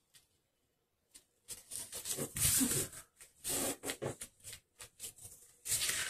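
Paper and card rustling and scraping on the tabletop as hands move and press down a card, in irregular bursts that begin about a second and a half in.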